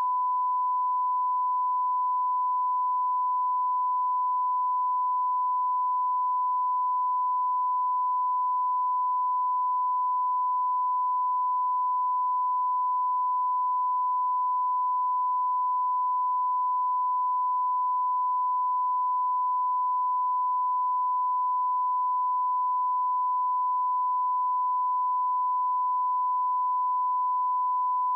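Broadcast test tone played with SMPTE colour bars: a steady 1 kHz sine-wave reference tone held at one pitch and level, cutting off suddenly at the very end.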